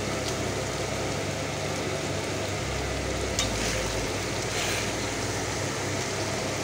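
Onion and ginger-garlic-chilli paste sizzling steadily with sliced onions in hot mustard oil in a kadai as the masala is fried down (kosha), with a couple of sharp clicks of the metal spatula against the pan.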